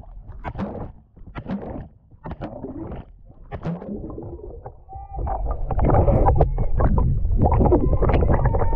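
Seawater splashing and gurgling around a GoPro camera dunked in the sea on a pole: scattered short splashes at first, then a loud, steady rumbling churn of water from about five seconds in.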